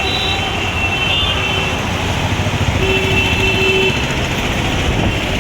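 Steady road-traffic noise with a low rumble and a couple of short horn-like tones, one near the start and one about three seconds in.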